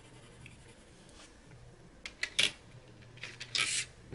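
Colored pencils being handled: a few light clicks and knocks about two seconds in, then a short scratchy rustle.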